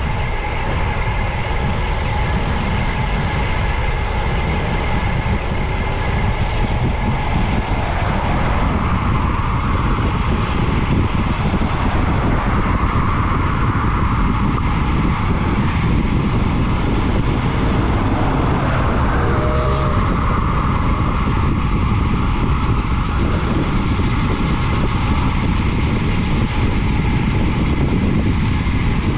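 Wind rushing over the microphone of a camera on a bicycle descending at speed: a loud, steady rumble with no break.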